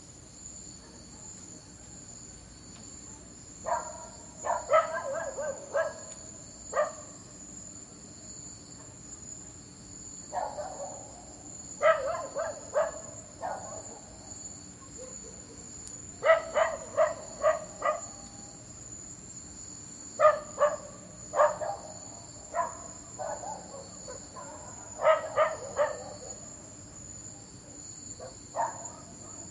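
A dog barking in bouts of several quick barks every few seconds, over a steady high chirring of insects.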